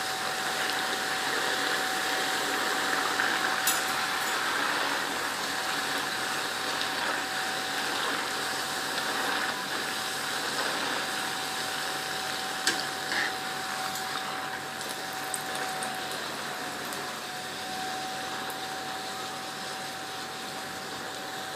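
Puris deep-frying in hot oil: a steady sizzle that eases off slowly, with a few light clicks and a thin steady tone underneath.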